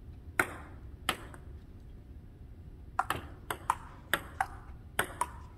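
Table tennis ball clicking off the paddles and the table: two single clicks, then from about three seconds in a fast rally of about nine sharp clicks.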